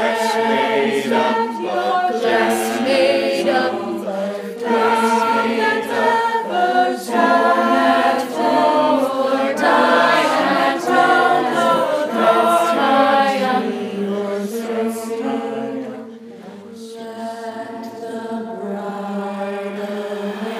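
Choral music: several voices singing a chant-like melody over a steady low held drone. It softens about three-quarters of the way through, then carries on in long held notes.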